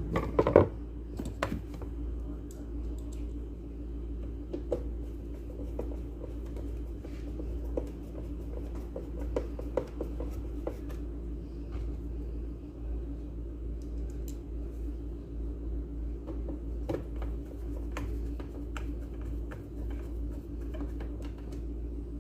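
Scattered clicks, taps and light scrapes of small plastic and metal parts and tools being handled while a mixer grinder is worked on, with a cluster of louder knocks about a second in. A steady low hum underlies it throughout.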